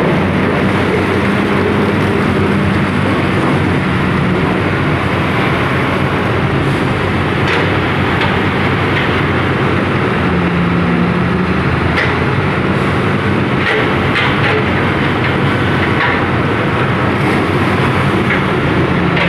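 Rotary piling rig's diesel engine and hydraulics running steadily, a constant low drone, with a few short clicks and knocks as the muddy drilling bucket works.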